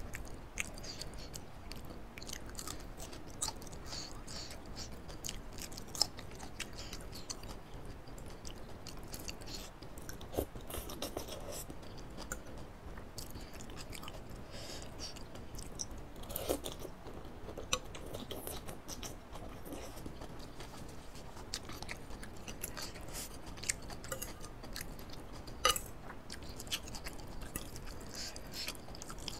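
Close-miked chewing of a mouthful of laksa-flavoured instant noodles with bean sprouts and pak choy: wet, irregular mouth clicks and soft crunches, with a few louder sharp ones.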